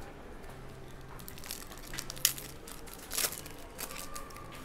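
Foil wrapper of a trading-card pack being crinkled and torn open by hand, with two sharp rips about two and three seconds in.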